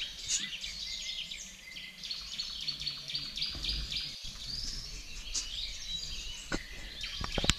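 Small birds chirping and twittering continuously, with a few sharp knocks near the end.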